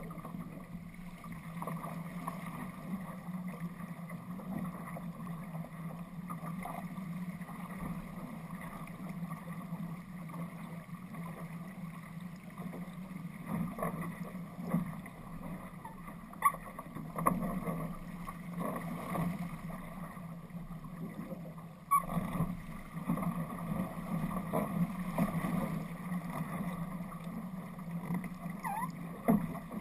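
Water rushing and splashing along the hull of an RS Aero sailing dinghy running downwind through chop, rising and falling as it meets the waves, with a few sharp knocks.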